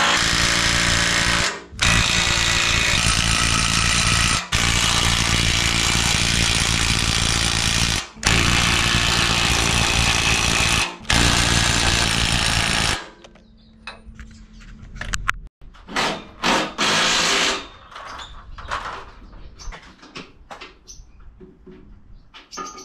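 Cordless Makita impact wrench hammering anchor bolt nuts down on a hoist post's steel base plate, in five long runs with brief pauses between, stopping about thirteen seconds in. After that only quieter scattered clanks and knocks.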